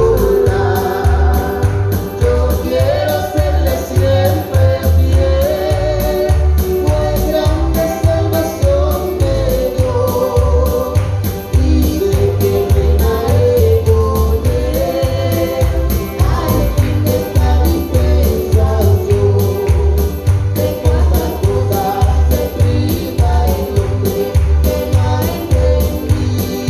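A Christian hymn in Spanish, sung by a man and a woman together over a live band with a steadily pulsing bass.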